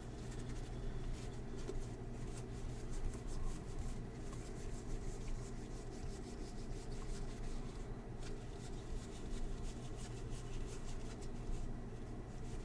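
Baseball trading cards being slid and flipped through by hand: a faint, continuous rubbing and flicking of card stock, over a steady low hum.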